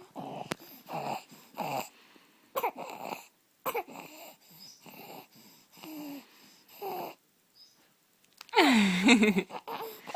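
A six-week-old baby's noisy, squeaky breathing (stridor) from laryngomalacia, a quick series of short rasping breaths. About three-quarters of the way through, the baby makes a louder pitched vocal sound.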